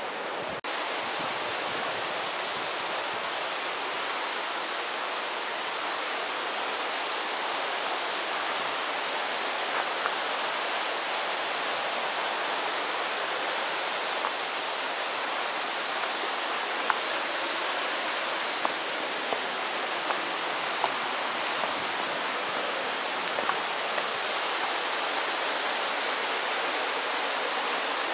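Steady rush of flowing water, with a few faint ticks scattered through it.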